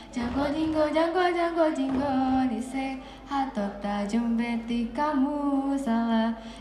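A group of kneeling dancers chanting in unison, a melodic sung chant with held notes that step up and down, punctuated by a few sharp hand claps.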